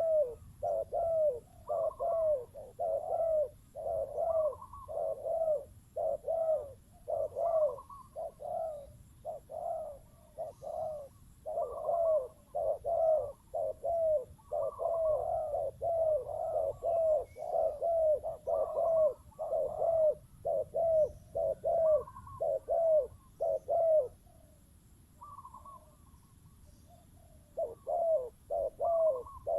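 Spotted doves cooing in quick repeated phrases, about two notes a second, with a break of a few seconds near the end before the cooing resumes.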